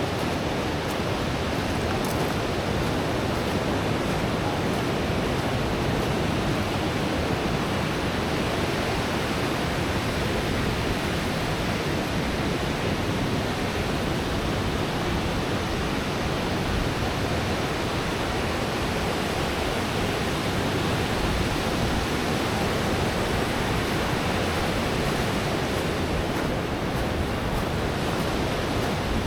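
Pacific surf breaking and washing up the beach, a steady rushing noise with no let-up.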